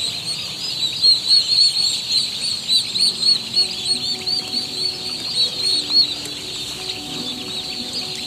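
A crowd of young turkey poults peeping together, a dense, continuous chorus of high, rapid chirps that cuts off suddenly at the end.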